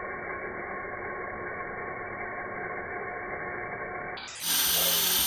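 Small electric RC helicopter hovering: a steady whine from its motor and rotors. About four seconds in, the sound suddenly becomes louder and much brighter.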